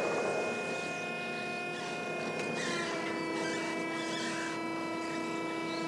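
Steady mechanical hum of a fishing boat's machinery, a drone of several steady tones that holds unchanged, with faint hiss over it.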